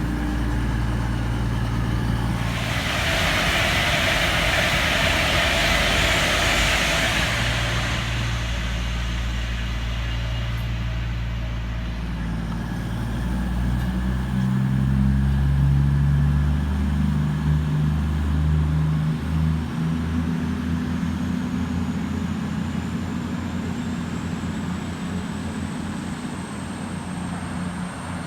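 Train at a station platform: a steady low engine hum, a loud hiss lasting about five seconds a few seconds in, then the engine notes rise and shift about halfway through as the train works harder.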